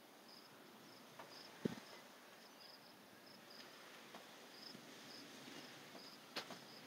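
Crickets chirping faintly, short high chirps about twice a second. A single dull thump sounds about a second and a half in, and a sharp click near the end.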